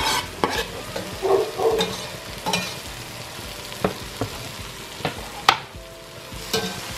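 Onions and garlic sizzling as they fry in an enamelled cast-iron pot, with a metal spoon clinking and scraping against the pot several times as they are stirred.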